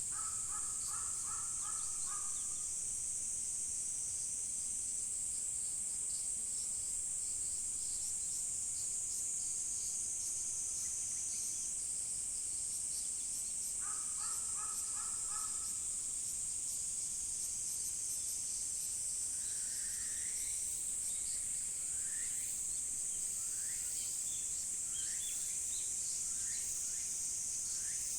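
Insects keep up a steady high-pitched chorus. A crow caws in two short runs, one at the start and one about halfway. Near the end a smaller bird gives a series of short calls that rise in pitch.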